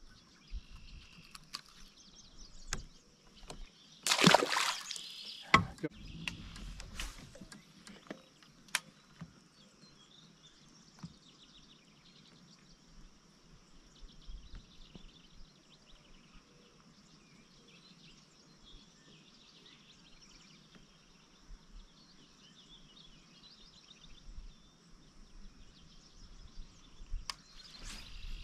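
Outdoor pond ambience: a steady high-pitched insect drone, water sloshing against a kayak, and scattered small clicks. A loud rushing noise lasting under a second comes about four seconds in, followed soon after by a thump.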